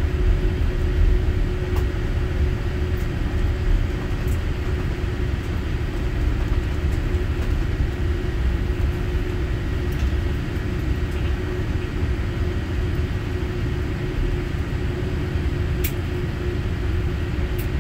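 Inside the cabin of a Boeing 787-8 taxiing, its GE engines at low power: a steady, loud low rumble with a steady hum over it. A few faint clicks, one near the end a little sharper.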